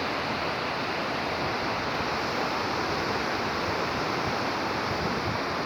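Ocean surf washing steadily on the beach, an even rushing noise with no break.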